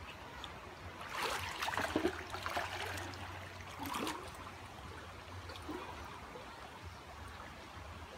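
Water splashing and sloshing as a man stands in a shallow stream working with his hands under the surface, over the steady burble of flowing water. The splashing is loudest from about a second in to nearly three seconds, with another burst about four seconds in.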